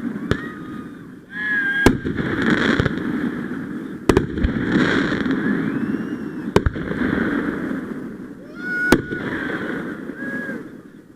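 Fireworks going off: about six sharp bangs a second or two apart, each followed by a long crackling hiss.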